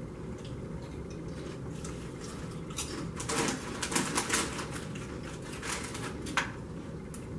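Crunching of Doritos tortilla chips being chewed, mixed with the crinkle of hands in the chip bags: a run of sharp crackles, busiest from about three seconds in until near the end.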